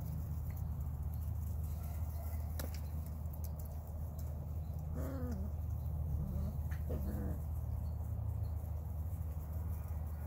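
Belgian Malinois puppies at play give two short yelps about two seconds apart over a steady low rumble, with a few soft clicks before them.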